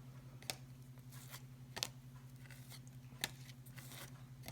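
Paper trading cards being flipped through by hand: soft rustles and four sharp clicks spaced a second or so apart, over a steady low hum.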